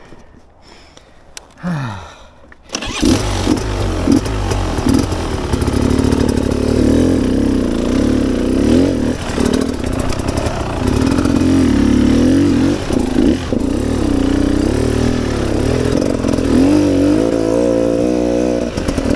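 A 2017 Beta 300 Xtrainer two-stroke dirt bike engine starts about three seconds in, then runs loudly, revving up and down as the bike is ridden up a trail.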